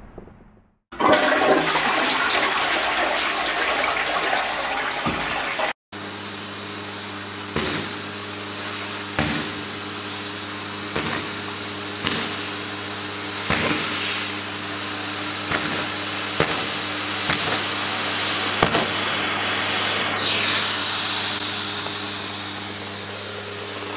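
A loud rushing noise that cuts off abruptly after about five seconds. Then a steady electrical hum with single sharp pops every one to two seconds, and a swoosh near the end.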